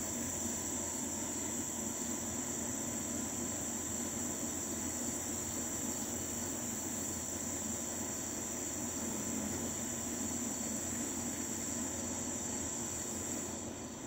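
Steady, high-pitched insect buzzing with no breaks, over a fainter low rumble.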